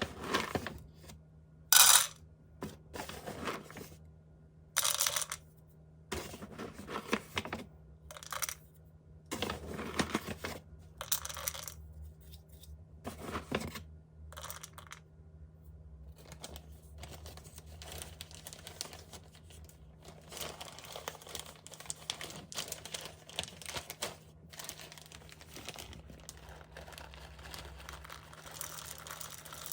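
Irregular rustling, crinkling and clattering handling noises, with a sharp clatter about two seconds in and another about five seconds in, over a faint steady hum.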